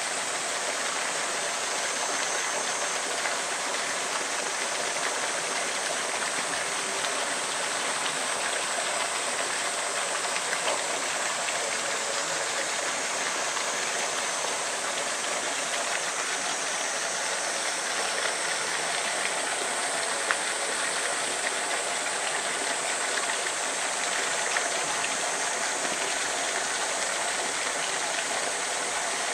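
Steady rush of running water, with a few faint clicks over it.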